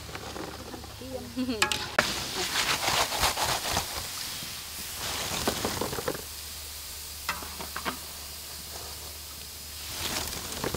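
Hot oil sizzling and crackling in a large wok as food deep-fries; the crackle is densest in the first half and thins out later.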